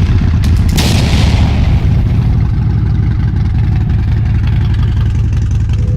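Harley-Davidson V-twin engine running at idle through its freshly re-bolted exhaust, with a short louder burst about half a second in. It sounds normal, with no sign of the exhaust leak from the backed-out bolts.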